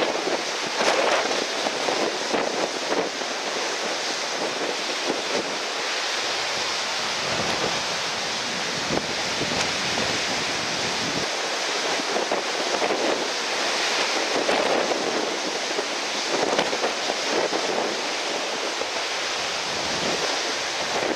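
Gale-force wind buffeting the microphone over the steady wash of breaking surf, swelling and easing every few seconds.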